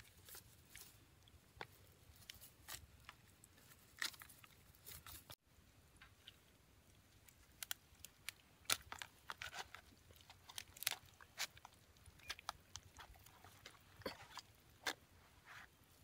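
Scattered small clicks and crackles of handling as seasoned birds are worked onto a bamboo skewer, wet meat and stick rubbing and snapping, some sharper clicks in the second half.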